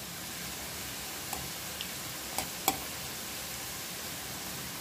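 Hot oil sizzling steadily as small folded pastry-dough pieces deep-fry in a pan, with a few sharp clicks in the first half.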